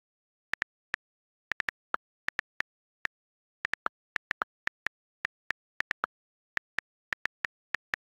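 iPhone on-screen keyboard key clicks as a message is typed: a quick, irregular run of short, sharp ticks, about three or four a second, with dead silence between them.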